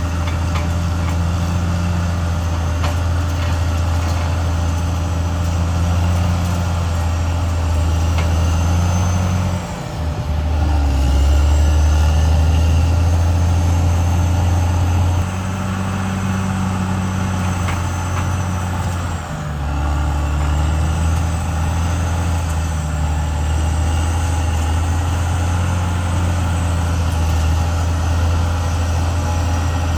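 CAT D6R XL bulldozer's diesel engine running hard, its low note shifting several times, with a brief dip about ten seconds in and again near twenty. A thin high whine sits above it.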